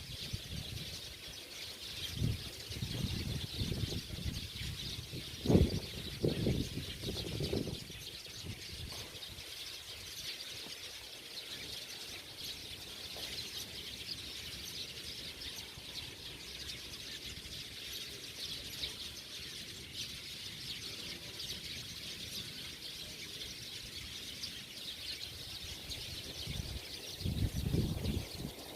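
A flock of small birds chirping continuously, a dense unbroken chorus of many overlapping calls. A few low thuds come about two to eight seconds in, the loudest near the middle of that stretch, and again near the end.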